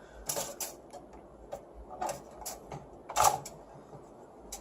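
Scattered small clicks and taps of computer hardware being handled and opened up in a desktop PC case, about eight in all, the loudest a little past three seconds in.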